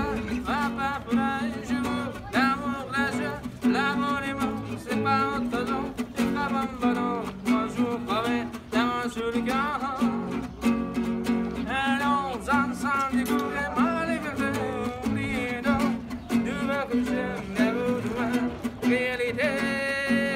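A man singing while strumming an acoustic guitar: strummed chords under a singing voice, steady all through.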